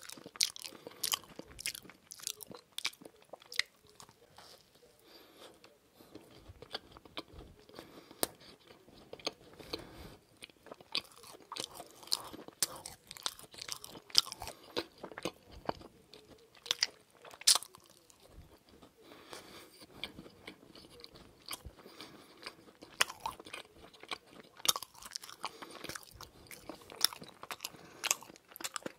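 Close-miked eating of a lemon macaron: bites and chewing with soft crunches of the shell and many irregular sharp mouth clicks.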